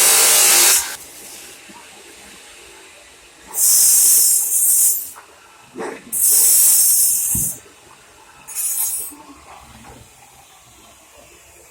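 Welder laying short welds: four bursts of loud sizzling hiss, each about a second or so long, starting and stopping sharply, the last one shorter.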